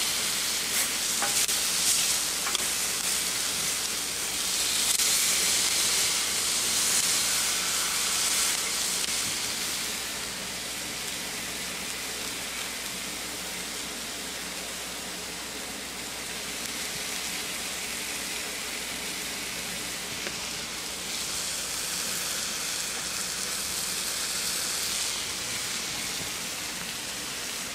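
Thick-cut pork chops sizzling on a steel flat-top griddle: a steady frying hiss that swells a little twice, for a few seconds each time.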